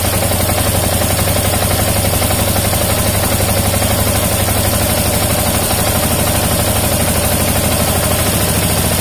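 Yamaha Jupiter MX King's fuel-injected single-cylinder four-stroke engine idling steadily, its idle speed being raised with the idle screw on the throttle body.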